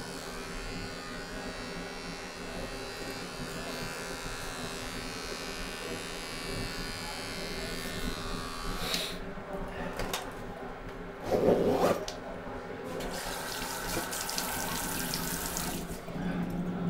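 Electric shaver buzzing steadily against the face for about nine seconds, then switched off with a click. A few seconds later a sink tap runs and water splashes, with a loud splash partway through.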